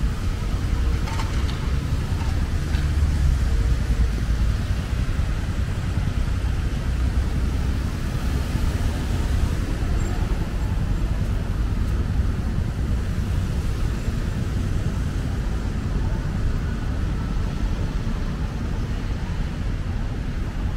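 City street traffic: a steady low rumble of passing cars with a constant hiss over it.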